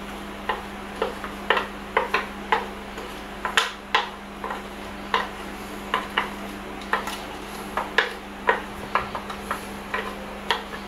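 Wooden spoon knocking and scraping inside a plastic blender jar as a thick seasoning paste is scraped out into a stainless steel bowl: a string of irregular sharp clacks, over a steady low hum.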